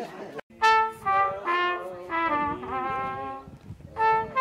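Trumpet and trombone playing a tune in held notes, starting suddenly after a brief silence about half a second in.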